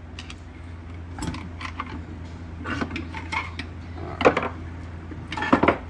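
Metal clinks, taps and scrapes of a steel pry bar working against an aluminium dog-box transmission case as the case halves are split apart. The knocks come singly, with the loudest about four seconds in and a quick cluster near the end.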